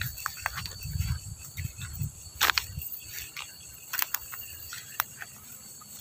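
Night insects trilling steadily on one high thin note. Over it come crackling clicks of grass and stems being pushed through and stepped on, with one sharper snap about two and a half seconds in.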